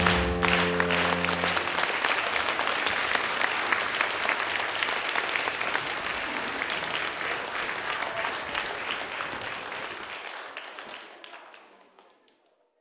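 Audience applauding: dense, steady clapping that fades away near the end. A held closing music chord is heard under it for the first two seconds or so, then stops.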